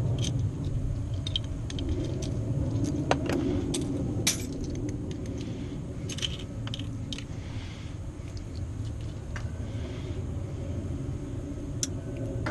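Small metal clicks and clinks of keys and Kwikset lock parts being handled during a rekey, scattered irregularly over a steady low rumble.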